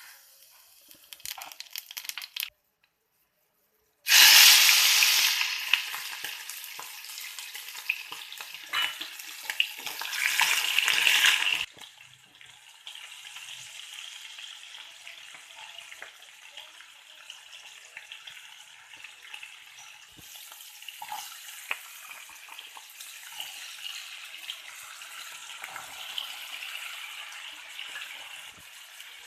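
Food frying in hot oil in a pan: a loud burst of sizzling about four seconds in that cuts off suddenly near twelve seconds, followed by steady, quieter sizzling with small crackles.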